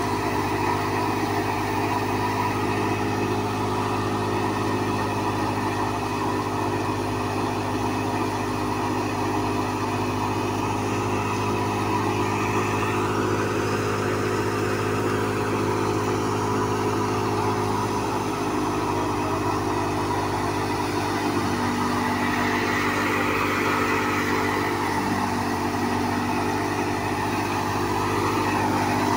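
Tractor-driven grain thresher running steadily, its drum and blower whirring over the drone of the Fiat 640 tractor's diesel engine held at about 1600 rpm. The straw is fed through without a break, and the pitch shifts slightly about two-thirds of the way in.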